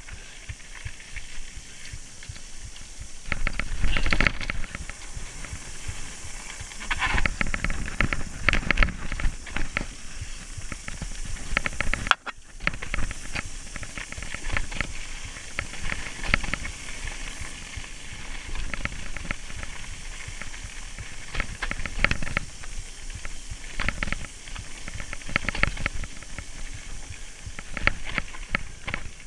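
Mountain bike riding down a forest trail: a steady hiss of tyres and wind with irregular clattering rattles as the bike jolts over bumps, loudest about four seconds in and again around eight seconds.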